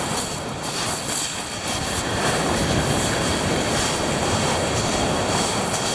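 Sea waves washing onto a shingle beach: a steady rushing noise.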